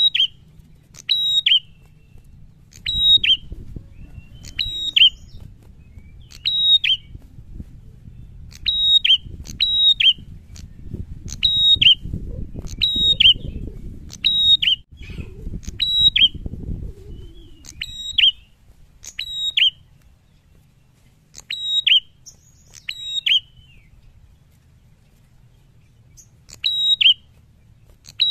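Caged prenjak giving loud, sharp high calls over and over, roughly one every second or two. Each call drops quickly in pitch, and there are a couple of longer pauses near the end. Under the calls for much of the middle stretch runs a low rustling rumble.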